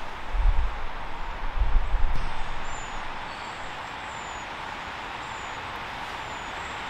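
Wind buffeting the microphone in two low rumbling gusts during the first two seconds, over a steady hiss of wind in the trees. A faint high chirp repeats about every three-quarters of a second through the rest.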